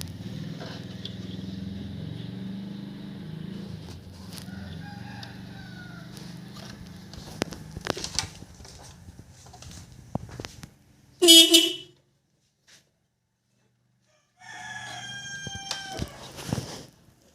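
Motorcycle horn on a Suzuki Smash giving one short, loud beep about eleven seconds in, sounded as a test of the newly wired horn. A rooster crows for about two seconds near the end.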